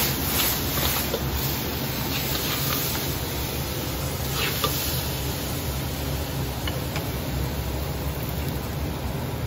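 Fried chicken and vegetables sizzling in a hot iron wok as they are ladled out, over a steady low hum, with a few faint clicks of the metal ladle against the wok.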